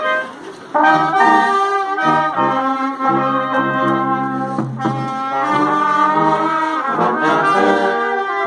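Brass band playing music in long held notes, with a brief break just under a second in.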